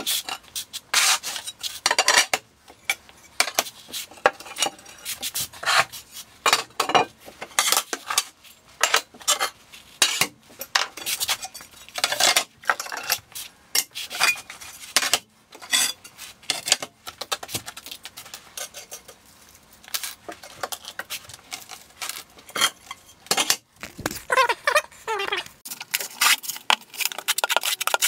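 Tile-setting work noise: a fast, dense run of scrapes, clicks and clatter from porcelain tile, plastic leveling clips and a notched trowel working thinset mortar over an uncoupling membrane.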